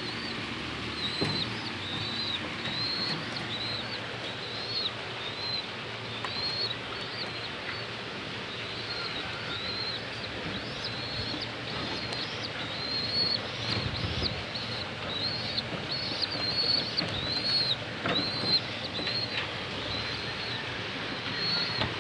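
A bird chirping over and over, short high chirps about twice a second, over a steady background hiss.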